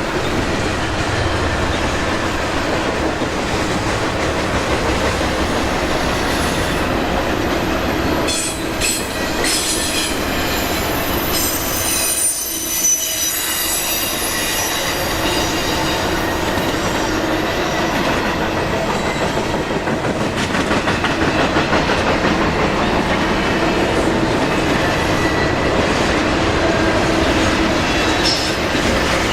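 Long freight train rolling past with a steady, loud rumble, its wheels squealing against the rail in several high, sustained tones. The sound thins briefly about twelve seconds in, then carries on.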